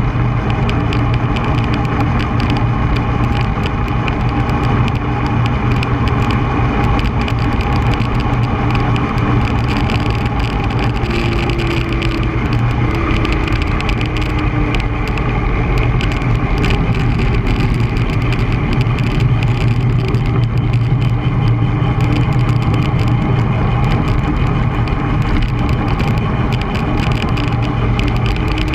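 Steady wind rush on the microphone of a bicycle-mounted camera, with road-bike tyres rumbling on asphalt as the bike rolls along.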